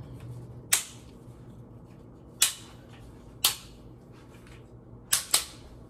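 A tripod being handled and adjusted, giving five sharp clicks, the last two close together, over a steady low hum.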